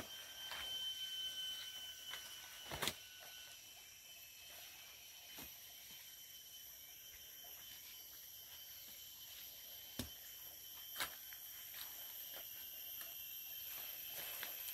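Quiet tropical forest ambience: a steady high insect drone, with a few sharp snaps from footsteps in the undergrowth, the clearest about three seconds in and around ten and eleven seconds.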